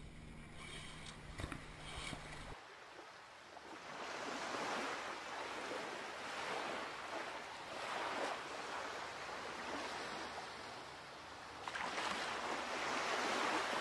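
The last held notes of music fade out in the first couple of seconds. Then a rushing water sound swells and falls every two seconds or so, like small waves washing in.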